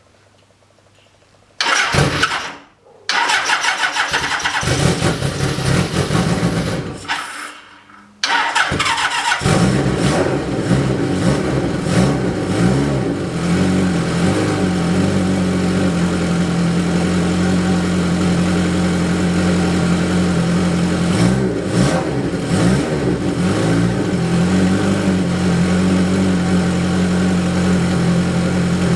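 Bimota KB1 motorcycle's Kawasaki inline-four engine being started: it fires briefly about two seconds in and dies, runs a few seconds and fades out, then catches at about eight seconds and settles into a steady idle.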